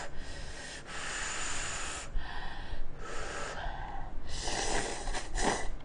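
Instant cup noodles being slurped up with chopsticks: several long, airy slurps with short pauses between them.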